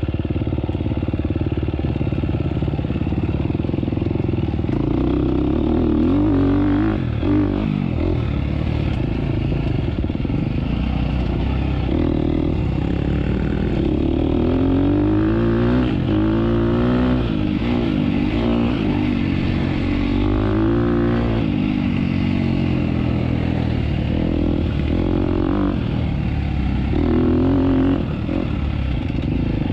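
Off-road motorcycle engine running under a rider, its pitch rising and falling again and again as the throttle is opened and closed along the trail.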